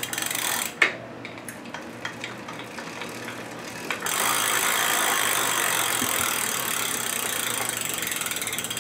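Rear wheel with a gearless hub motor spinning freely, its freewheel pawls ratcheting. The ratcheting jumps to a fast, steady buzz about four seconds in.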